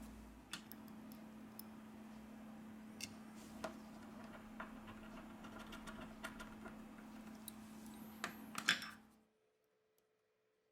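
Small sharp clicks and taps of tools and phone parts being fitted together during smartphone reassembly, over a steady low hum, with a quick cluster of louder clicks just before the sound cuts off suddenly about nine seconds in.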